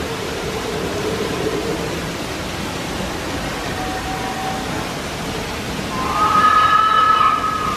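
Steady rush of falling water from the waterfalls pouring down the rock spires. About six seconds in, a high-pitched call rises above it for a second or so.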